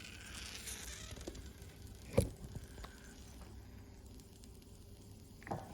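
Small parts of a toy steam engine being handled: a sharp knock about two seconds in and a lighter one near the end, over a faint steady hum.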